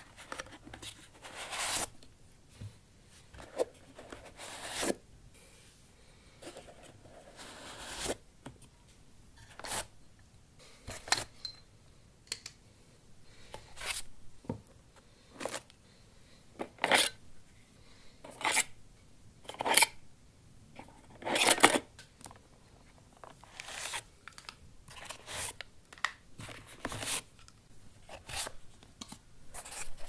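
Hardware being pulled one piece at a time out of the cut-outs of a foam-lined case: short, irregular scrapes and rubs of modules, cables and power adapters against the foam, one every second or two.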